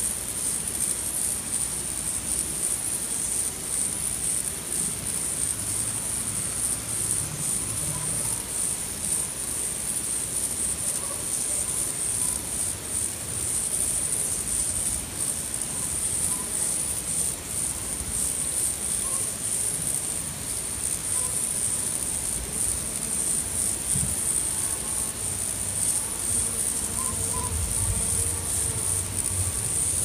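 A continuous high-pitched insect trill, like a cricket chorus, with faint low rumbles underneath near the end.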